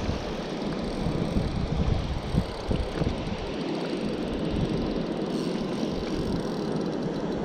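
Wind buffeting the body-worn camera's microphone as a steady rumbling noise, with a few dull handling bumps in the first three seconds.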